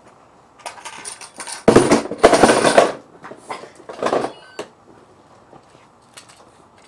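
Plastic toys clattering and rattling as a child rummages in a toy shelf bin: a run of short rattling bursts over the first few seconds, loudest around two to three seconds in, then quiet.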